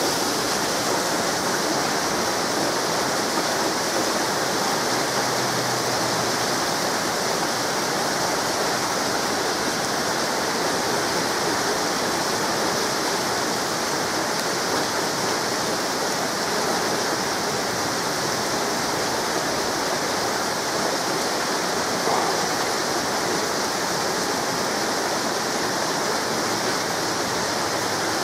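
Heavy rain falling steadily, an even, unbroken hiss of downpour with no thunder.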